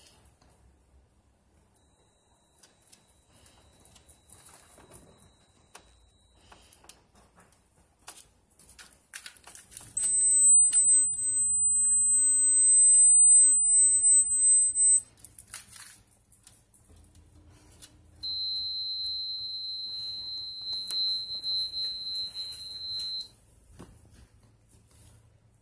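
Three steady, high-pitched electronic tones, each held about five seconds, stepping down in pitch: a very high one, then a lower one, then a lower one still. Faint clicks and rustling fill the gaps between them.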